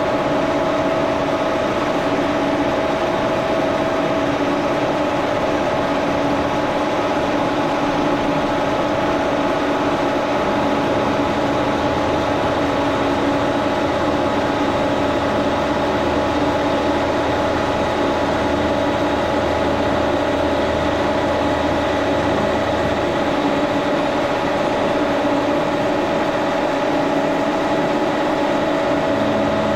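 1942 Brown & Sharpe No. 2 Plain milling machine running steadily, taking a cut of about ten thousandths in aluminum. It is a constant mechanical hum made of several steady tones.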